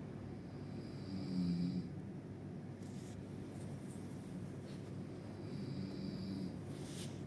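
A person snoring: two long snores about four and a half seconds apart, the first the louder. Faint clicks fall between them.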